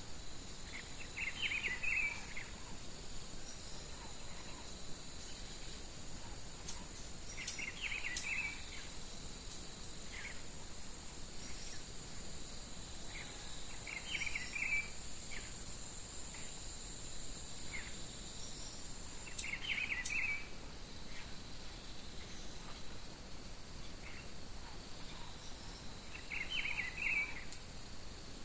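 A songbird repeating one short, quick phrase about every six seconds, five times, over a steady high-pitched trilling of insects.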